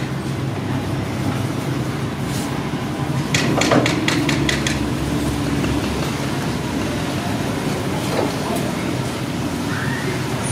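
A steady low mechanical hum, with a quick run of about half a dozen sharp clicks or taps about three and a half seconds in.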